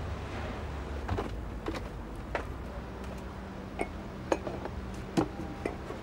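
A low engine hum, heavy for about the first second and then fainter, with scattered light clicks and clinks, roughly one every half second to second.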